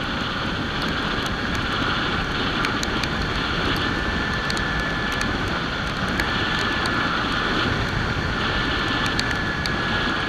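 Steady wind rush over the microphone of a Kawasaki Ninja 300 being ridden in the rain, with the motorcycle's running drone underneath. Scattered sharp ticks of raindrops strike the microphone.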